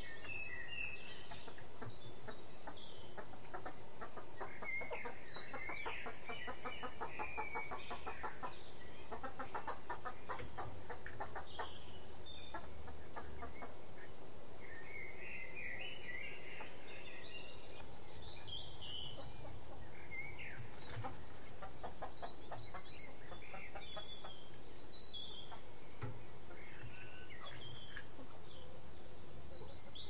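Domestic hens clucking in several stretches of rapid, low clucks, with small birds chirping high throughout.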